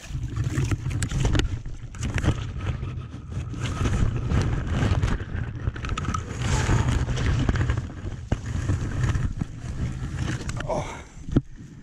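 Leaves and brush rustling and scraping against a body-worn action camera, over a steady low rumble of handling and wind noise on the microphone; it dies down near the end.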